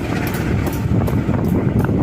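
A train running on the tracks: a steady low rumble with scattered light clicks.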